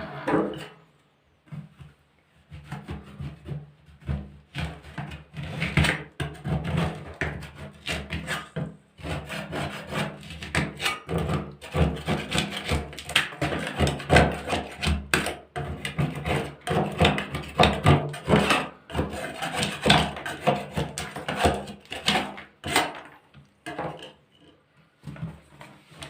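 A hand scraper scraping heat-softened old paint off wooden floorboards in quick, irregular strokes, with the heat gun switched off.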